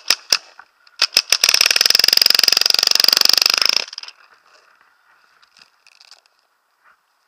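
Paintball marker firing: a few quick shots, then a long rapid-fire burst of about two and a half seconds that stops about four seconds in. Faint rustling follows.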